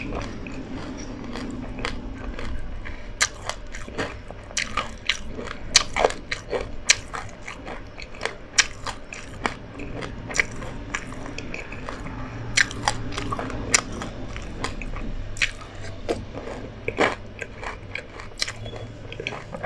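Close-up chewing of mouthfuls of sesame seeds and other seeds in passion fruit pulp: a dense, irregular run of sharp crunches and crackles as the seeds are bitten and chewed.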